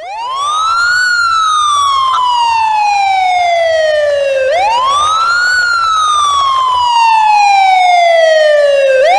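A siren wailing in long slow cycles: each one rises quickly in pitch for about a second, then slides slowly down for about three and a half seconds. The cycle sounds twice, and a third rise starts near the end.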